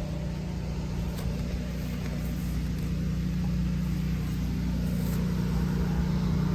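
24 kW Generac standby generator's V-twin engine running steadily on propane with an even hum.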